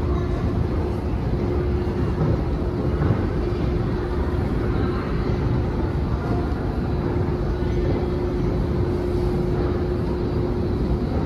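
Metro station escalator running: a steady mechanical drone with a constant hum tone over it, which stops near the end.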